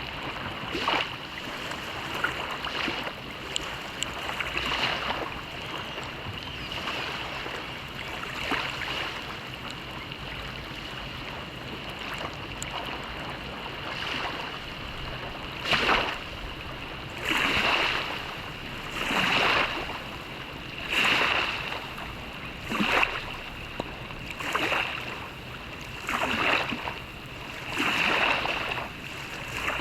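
A swimmer's strokes splashing in the water, faint and irregular at first, then regular about every second and a half to two seconds from about halfway on, over a steady hiss of rain.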